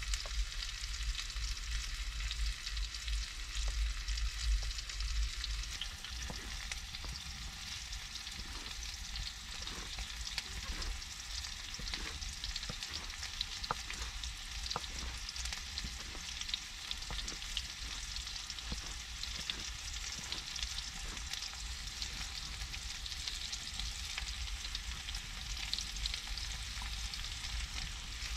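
Knife slicing mushrooms on a wooden board: a run of short knocks that starts several seconds in, over the steady crackling hiss of a wood fire in the stove.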